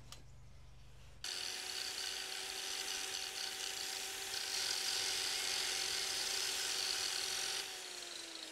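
An electric grinder switches on about a second in and runs steadily, with a loud hiss as it grinds on metal. Near the end it is released, and its motor whine slides down as it spins down.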